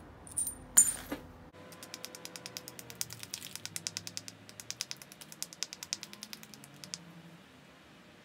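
Stone on flint: a few sharp clicks about a second in, then a fast run of light clicks, about ten a second, as a small stone abrader is worked along the edge of a flint biface to prepare it for flaking. The clicking stops about seven seconds in.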